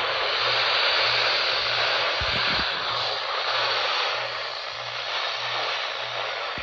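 Radio static: a steady hiss from a weather radio that has lost the broadcast, with a faint low hum pulsing about twice a second and a few clicks about two seconds in.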